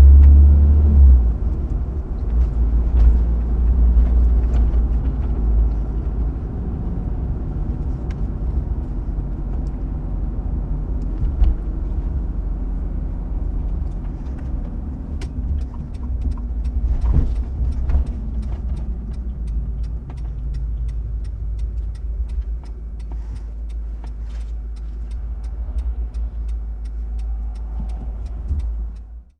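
Car driving, a steady low engine and road rumble that is loudest at the start, with faint scattered ticks in the second half. It stops abruptly at the end.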